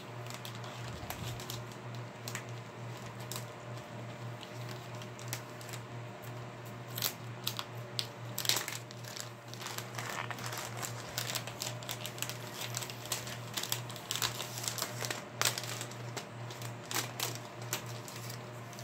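Plastic and paper gift packaging crinkling and rustling as it is handled, on and off and busiest through the middle, over a steady low hum.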